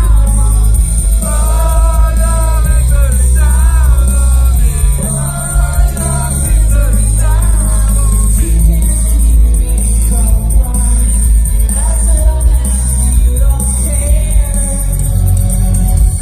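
Live rock band playing loudly: a woman singing lead over electric guitar, drums and heavy bass.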